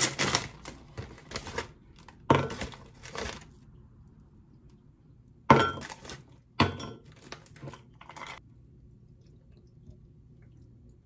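Plastic bag of frozen shrimp crinkling as it is opened and handled, then frozen shrimp dropping into a glass bowl with sharp clinks, the loudest about five and a half seconds in.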